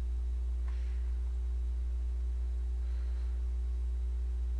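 Steady low electrical hum with a few fainter steady tones above it.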